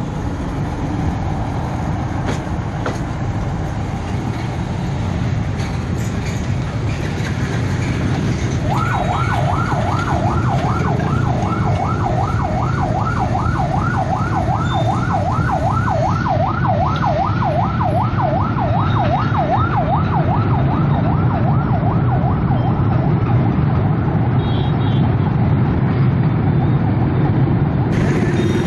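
An electronic warning alarm sounds for about fifteen seconds, starting about nine seconds in, as a fast rising-and-falling warble about three times a second. Under it runs a steady low rumble that slowly grows louder.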